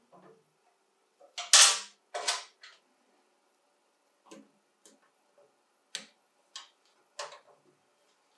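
Hands handling metal and plastic fittings at a sandblasting cabinet's air regulator and hose: a string of short clicks and knocks. The loudest two come close together about a second and a half in, followed by scattered lighter clicks.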